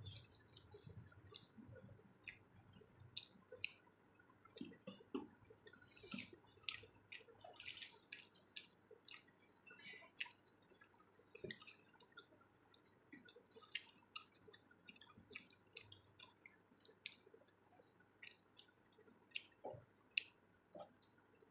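A person eating: quiet chewing with irregular soft, wet mouth clicks and smacks.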